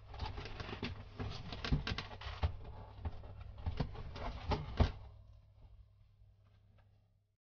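Small cardboard boxes being handled and opened: a quick run of rustles, scrapes and taps for about five seconds, then much quieter handling, over a low steady hum.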